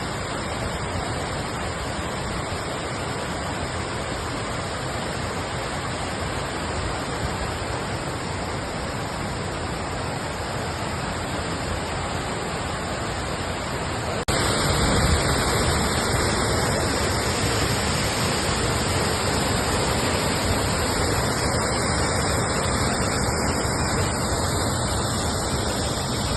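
Glencar Waterfall: steady rushing of falling water with no break or rhythm. It becomes suddenly louder and fuller about halfway through.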